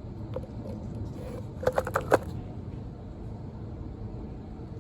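Four quick sharp knocks and clicks from the broken vacuum cleaner's plastic body being handled, packed into about half a second about two seconds in, over a steady low background rumble.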